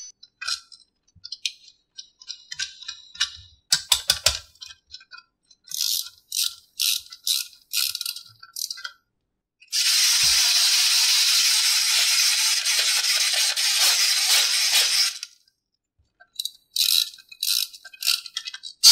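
Small plastic toy parts clicking and rattling in short quick runs. About ten seconds in, a steady hiss lasts about five seconds, then the clicking comes back.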